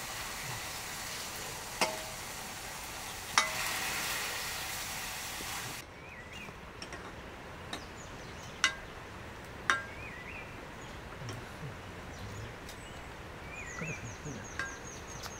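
Food sizzling in a wok, with two sharp metallic taps of a utensil against the pan. About six seconds in the sizzle cuts off abruptly, leaving scattered light clicks and knocks, short bird chirps, and a rapid high trill near the end.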